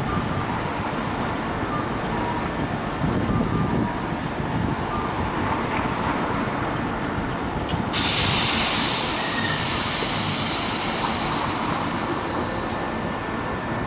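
Fukui Railway 770-series articulated tram rolling slowly into a street-running stop, its running gear rumbling on the rails. About eight seconds in comes a sudden loud hiss of air that fades over a few seconds, typical of the tram's air brakes venting as it halts.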